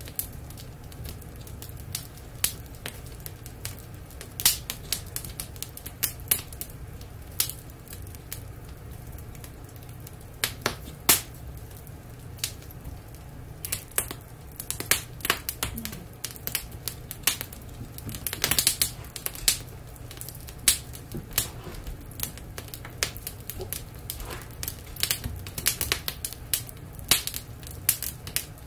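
Wood fire crackling in a fireplace insert: irregular sharp pops and snaps, coming thick and fast at times, over a low steady rumble.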